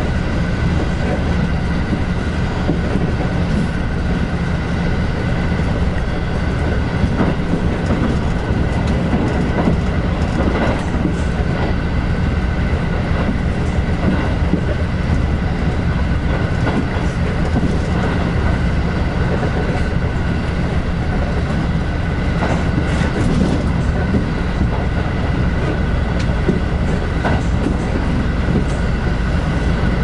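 Inside a limited express train running at speed: a steady rumble of wheels on rail with a constant high whine above it, and occasional sharp clicks from the track.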